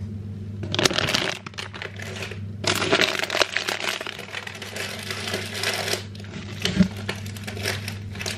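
Packaging crinkling and rustling as a packet is handled, in two bouts, the second and longer one about three seconds long, with a single knock near the end, over a steady low hum.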